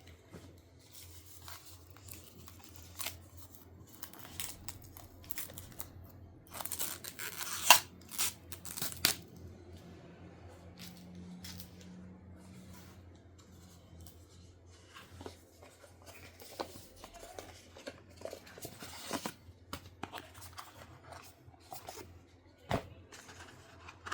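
Mouse packaging being opened and handled: scattered rustling, tapping and handling noises with a few sharper tearing or snipping sounds, loudest from about seven to nine seconds in.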